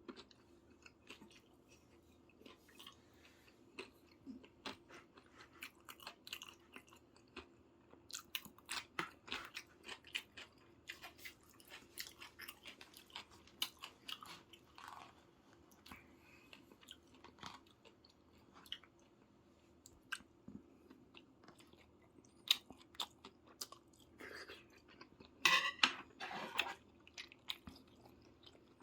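Close-miked chewing and biting of soy-sauce braised chicken (jjimdak): many small wet mouth clicks and crunches, louder for a moment near the end, over a faint steady hum.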